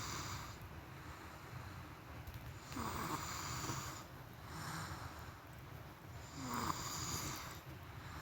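A person snoring in sleep, one snore roughly every three and a half seconds: the end of one at the start, then two more, about three seconds in and about six and a half seconds in.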